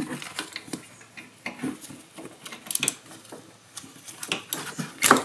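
Ratchet and wrench clicking and clinking against metal in irregular bursts as the mounting nuts on a golf cart's starter generator are loosened, with a sharper knock near the end.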